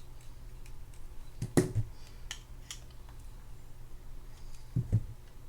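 Small screwdriver working an oiled screw into a Penn Spinfisher 8500SS spinning reel, with faint scattered metal clicks and ticks and a couple of louder handling knocks.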